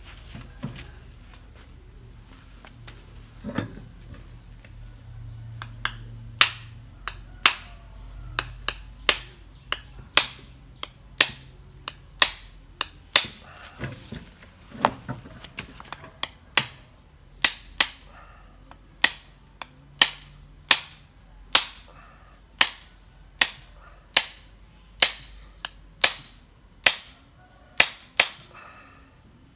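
A knife blade striking a trimmed roasted young coconut over and over to cut the shell open. About six seconds in it settles into a steady series of sharp knocks, roughly one every three-quarters of a second, with a few softer knocks before that.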